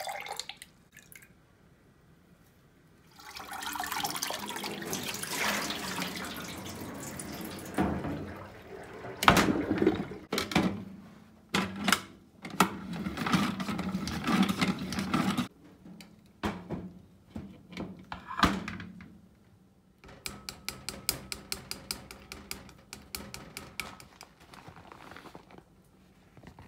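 Water pouring off noodles into a stainless-steel sink, then a plastic salad spinner being handled and spun with clattering knocks. Near the end comes a run of quick clicks.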